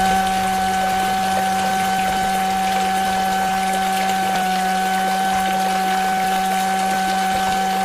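Small electric motor running at a steady, high pitch, with a watery hiss beneath it.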